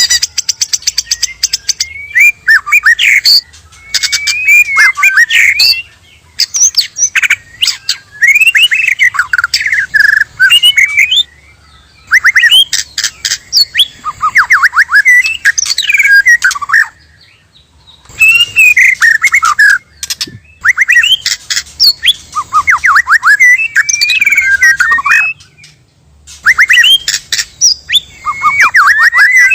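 White-rumped shama (murai batu) singing loud phrases of whistled glides and rapid chattering clicks, broken by short pauses every few seconds.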